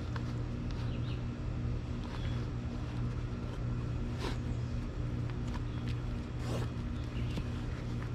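A steady low mechanical hum, with a few brief scrapes as shoelaces are pulled tight, about four and six and a half seconds in.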